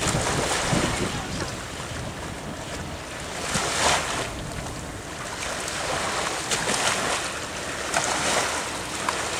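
Small waves lapping and splashing at the shoreline of shallow bay water, with wind rumbling on the microphone; the splashing swells about four seconds in and again near the end.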